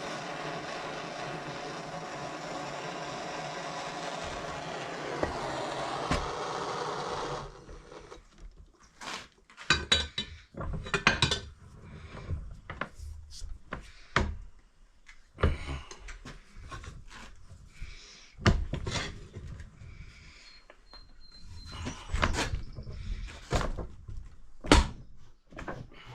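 A gas torch burns with a steady hiss and is shut off suddenly about seven seconds in. Irregular metal knocks and clunks follow as the heated, bent mower blade is worked straight.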